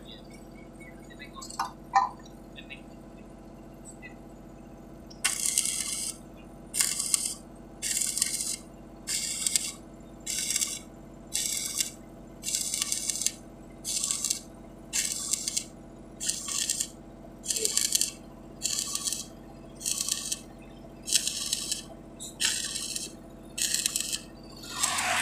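Even scraping strokes, about one every 1.2 seconds, starting about five seconds in after two sharp clicks, each stroke a short hiss.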